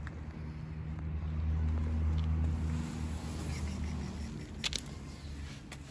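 A car engine running, its low hum swelling for a couple of seconds and then easing off, with a few sharp clicks near the end.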